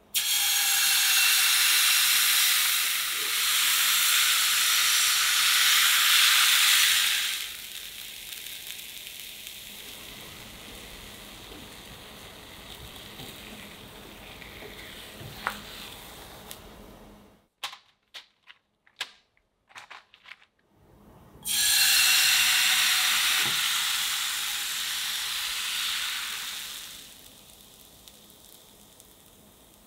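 Crepe batter sizzling loudly the moment it is poured into a hot frying pan, then settling to a faint hiss as it cooks. After a short pause with a few light clicks, a second pour sizzles up the same way and fades out.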